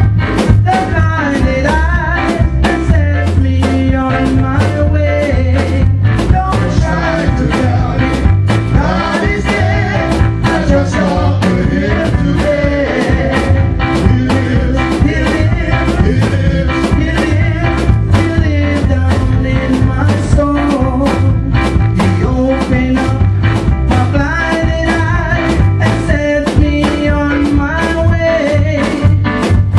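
Upbeat gospel praise band music with a steady drum beat, heavy bass and a wavering melodic line.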